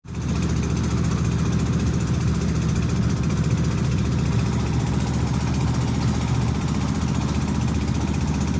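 A boat's engine running steadily with a low, rapid chugging.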